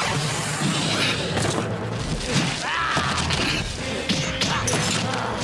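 Tokusatsu action soundtrack: background music under fight sound effects, with several sharp hits and crashes.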